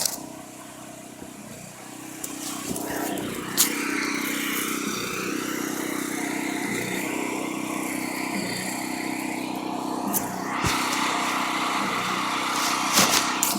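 Pressure washer engine running steadily with the spray hissing. The sound grows louder about three seconds in, and the hiss changes near the end. There is one sharp click shortly after it grows louder.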